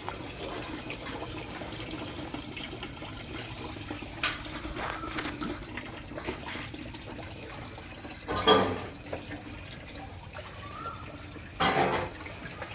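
Steady rushing noise like running water, with two short louder sounds about eight and a half and twelve seconds in.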